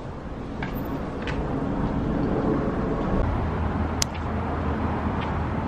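Steady vehicle rumble with a low hum, and a single sharp click about four seconds in.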